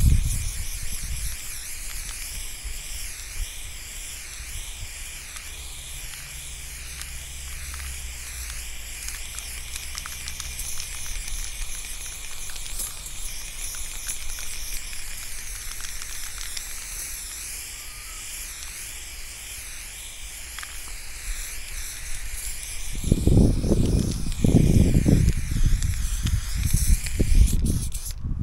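Aerosol spray-paint can hissing steadily as paint is sprayed onto a wall. Near the end come several loud, low bumps or rumbles.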